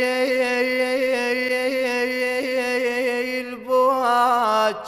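A solo male voice sings an unaccompanied Iraqi nasheed, holding a long, finely ornamented note. About three and a half seconds in it climbs to a higher note, then slides back down near the end.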